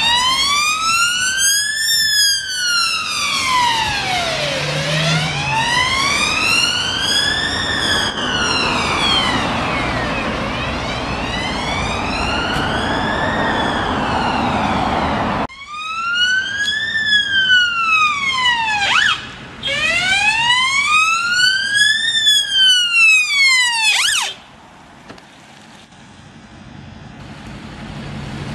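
Electronic sirens of emergency vehicles pulling out on a call, a police response car and then an ambulance rapid response vehicle, in a slow wail rising and falling about every five seconds. The siren breaks off about fifteen seconds in and starts again, with two quick whoops. It stops abruptly near the end, leaving only passing traffic.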